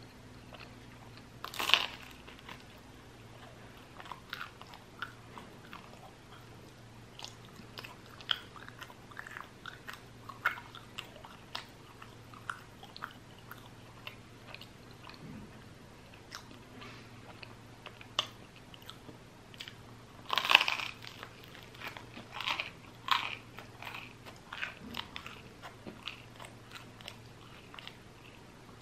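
Close-miked eating: two loud bites into crusty baguette, about 2 s and 20 s in, with crunchy chewing and small crackles between them.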